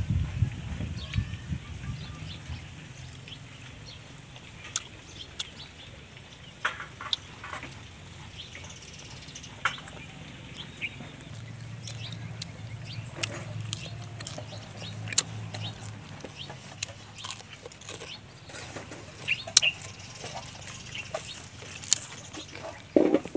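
A person eating spicy pork intestine and raw vegetables, with scattered sharp chewing and lip-smacking clicks over a low background hum.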